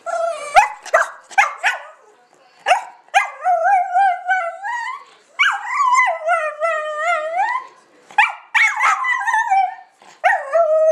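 Miniature pinscher 'talking': a few quick, sharp yaps in the first two seconds, then several long, drawn-out calls that waver up and down in pitch, often sliding upward at the end.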